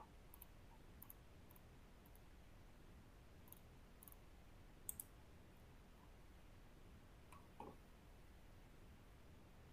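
Near silence: faint room tone with a scattering of soft, sharp clicks in the first half, the loudest about five seconds in, and a duller tap later on.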